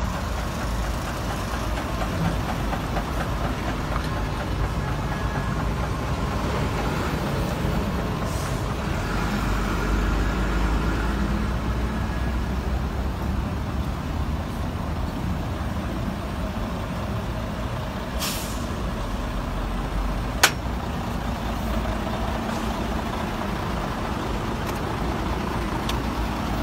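Heavy diesel trucks running close by as they make a slow turn, their engines giving a steady low sound throughout. About two-thirds of the way through there is a brief hiss like an air brake, then a single sharp knock, the loudest moment.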